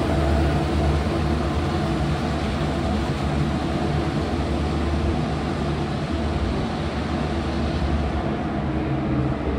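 Southern Shorthaul Railroad P-class diesel locomotives running steadily as the maintenance train moves along the platform road, a continuous low engine drone over rolling noise.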